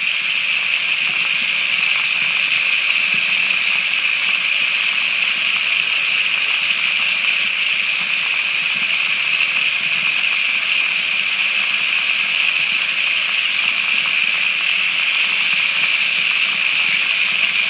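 Kitchen sink tap running full blast, water pouring steadily into a plastic tub and washing down a small pocket sluice.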